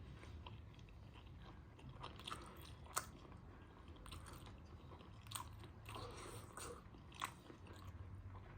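A person chewing food, faint and wet, with a few sharp crunchy bites.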